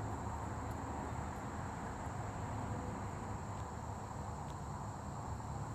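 Steady, continuous high-pitched insect chorus over a low, even background hiss and rumble of outdoor ambience.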